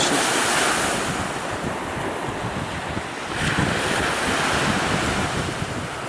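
Sea surf washing in, mixed with wind buffeting the microphone; the rushing noise swells twice, at the start and again about three seconds in.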